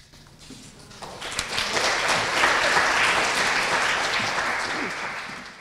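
Audience applauding, swelling over the first couple of seconds and tapering off near the end.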